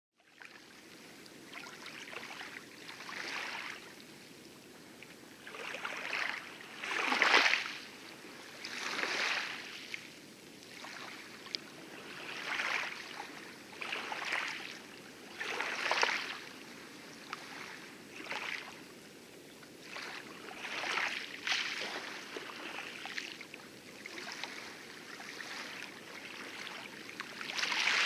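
Light waves washing and lapping over shallow coral, coming in irregular surges of hiss every second or two.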